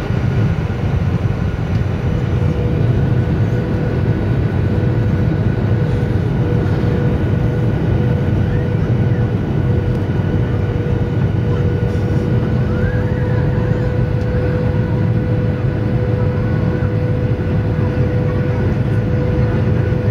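Jet airliner cabin noise on the descent to landing: a steady rumble of the underwing jet engines and rushing air, with a steady hum that comes in about two seconds in.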